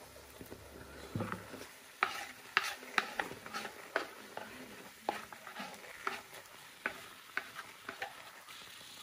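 Wooden spatula stirring and mashing thick cassava water fufu in a metal pot, with irregular sharp knocks and scrapes against the pot, about two a second and louder from about two seconds in.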